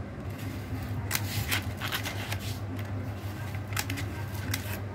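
Kraft-paper mailer crinkling and rustling as it is handled, a scatter of short crisp crackles, over a steady low hum.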